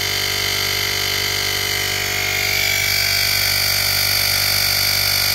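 Portable digital air compressor (JM-8817) running continuously with a steady buzzing hum, its pump working under load as it inflates a car tyre. About two and a half seconds in it gets slightly louder and its tone shifts a little.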